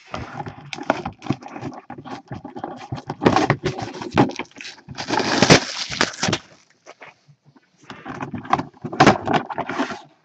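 Plastic shrink-wrap crinkling and tearing as it is stripped off a cardboard box, with handling rustle and small knocks. The crackling is densest and loudest about five to six and a half seconds in, and eases off briefly shortly after.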